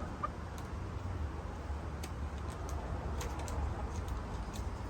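Backyard hens clucking softly, with scattered light clicks and taps over a steady low rumble.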